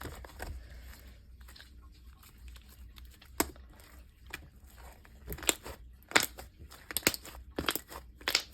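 Sticky, half-thickened slime dough being squeezed and pulled in the hands, giving irregular sharp clicks, pops and tearing snaps that come thicker in the second half.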